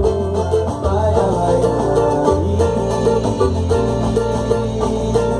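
Instrumental passage of a pagode song: plucked string instruments over a bass line, with percussion keeping the beat.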